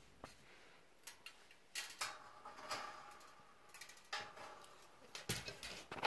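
Light clinks and rattles of Samsung dryer heating-element assemblies, sheet-metal plates with coiled wire, being handled and set down: an irregular scatter of small knocks, the strongest about two seconds in and just after five seconds.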